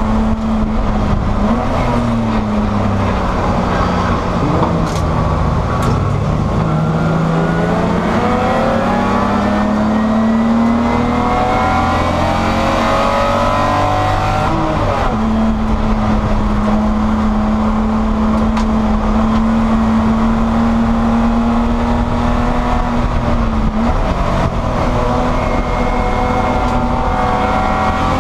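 In-cabin sound of a Spec E30 BMW race car's M20 inline-six under racing load. The revs dip and fall in the first few seconds, then climb steadily for several seconds. About halfway through they drop sharply at a gear change and then hold level, with another brief dip near the end.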